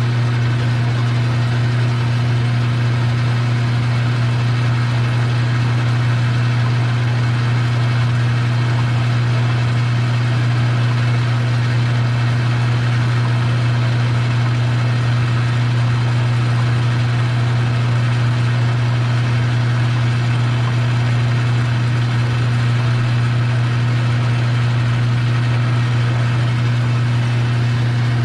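Metal lathe running steadily under power, a strong low hum with an even hiss over it.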